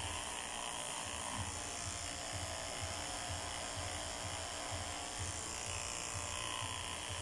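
Corded electric pet hair clipper running with a steady buzz as it trims the fur around a small dog's muzzle and chin.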